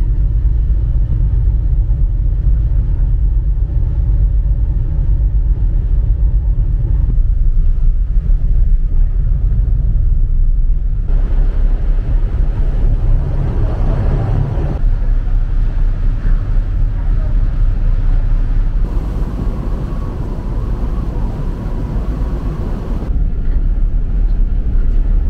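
Steady low rumble of a ferry under way, heard on its open deck, with a rushing noise layered over it. The mix changes abruptly every few seconds.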